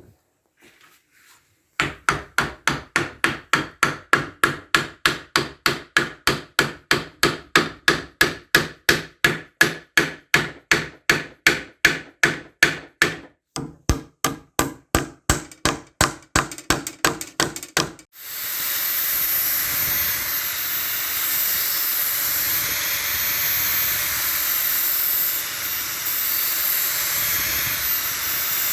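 Rapid, even hammer strikes, about three or four a second, with a short pause about two-thirds of the way through. Then a power sharpening tool starts and runs steadily with a high whine against the hatchet's blade.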